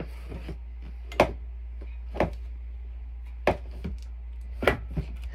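Several sharp knocks and taps at uneven gaps of about a second, the loudest about a second in, over a steady low hum.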